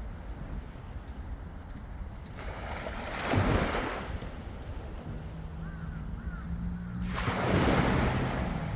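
Sea waves washing onto a beach: a steady rush with two louder surges as waves break, one about three seconds in and one near the end. A low steady hum joins from about halfway.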